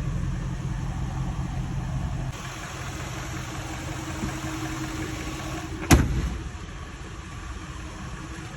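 2007 Jaguar XK's 4.2-litre V8 engine running steadily at idle, with one sharp knock about six seconds in.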